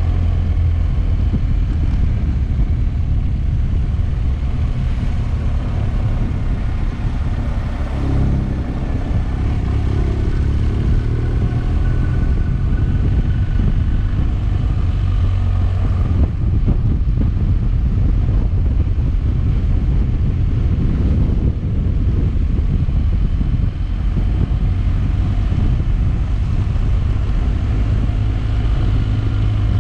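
Motorcycle being ridden, its engine running under way with a steady low rumble; the engine pitch shifts briefly about ten seconds in.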